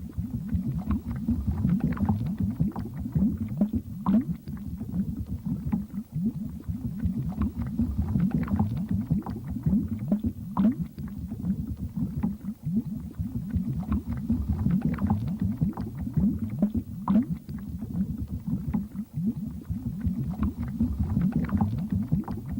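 Bubble ambience sound effect: continuous dense underwater bubbling, a low churning with many short rising bubble blips popping over it.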